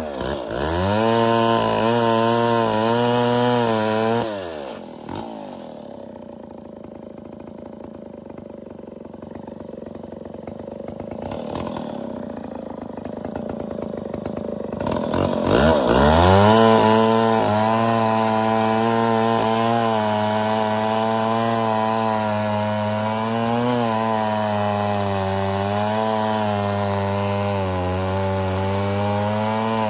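Stihl 1106 Contra 106cc two-stroke chainsaw with a fresh .404 chain, at full throttle cutting through a log round, its engine note wavering under load. About four seconds in it drops back to idle for around ten seconds. It then revs back up and runs at high speed in the cut again.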